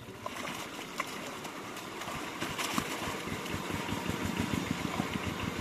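A small engine running with an even, rapid beat, growing louder about two seconds in.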